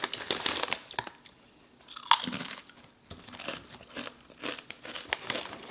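Crunchy chips being bitten and chewed close to the microphone: a run of short, sharp crunches, the loudest a crisp bite about two seconds in.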